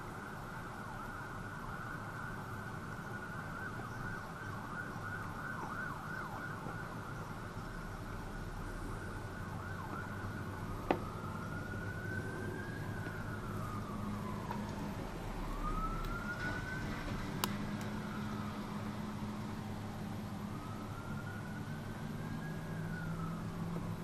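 An emergency-vehicle siren sounds, first a fast warble and then, from about eleven seconds in, three slow rising-and-falling wails. Two sharp ticks stand out above it.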